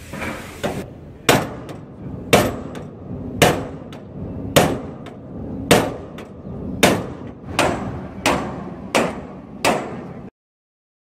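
Hammer blows on a steel WAR-LOK IR-20 intermodal barrier box locking a shipping container's doors. There are about ten sharp metal-on-metal strikes, roughly one a second and a little quicker near the end, each with a short ring.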